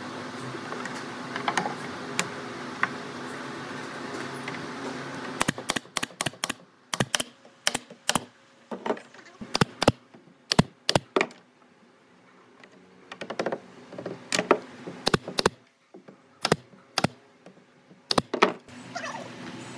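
A steady machine hum for about the first five seconds. It gives way to a long run of irregular sharp knocks and clicks, several a second, broken by short pauses.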